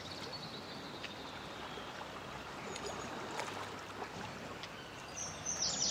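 Quiet harbourside ambience: a steady soft hiss of open air and calm water with faint scattered clicks. Near the end, a bird calls in a rapid run of high, falling chirps.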